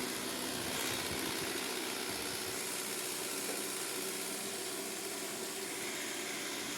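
Roomba robot vacuum running, a steady motor and fan hum with a hiss. Its owner finds the sound abnormal and suspects two months of disuse, though the filter has been cleaned.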